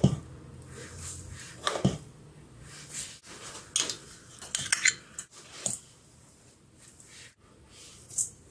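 Metal spoon knocking and scraping against a stainless steel mixing bowl as seasonings are spooned in: about half a dozen separate clinks and short scrapes with pauses between.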